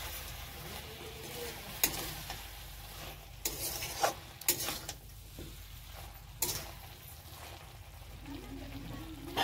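A steel spatula stirring potato and green-vegetable curry in a kadhai, scraping and knocking against the pan several times over a steady sizzle of frying.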